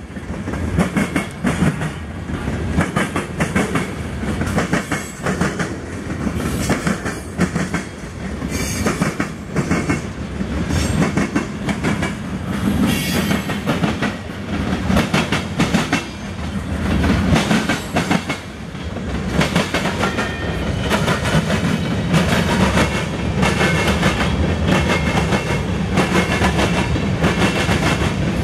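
Mixed freight train of covered hoppers and boxcars rolling past: a steady rumble of the cars with a continuous rhythmic clickety-clack of wheels striking rail joints and the diamond crossing.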